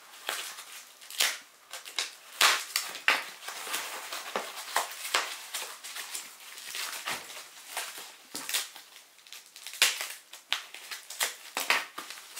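Polyethylene foam packing wrap and a plastic bag being pulled apart and unwound by hand: an irregular run of rustling with sharp crackles.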